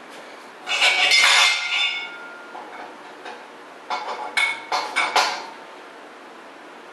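Metal parts clanking and clinking with a ringing note: a longer rattle about a second in, then a quick run of four or five sharper clanks about four seconds in.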